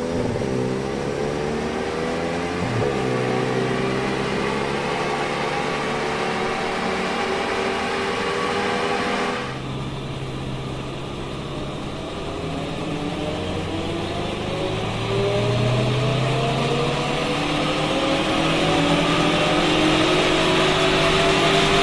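VW Golf GTI Mk8's 2.0-litre turbocharged four-cylinder under full throttle on a chassis dyno, the revs rising steadily with a dip at an upshift about three seconds in. About nine seconds in the sound turns duller and quieter as it is heard from inside the cabin, then keeps climbing through the higher gears.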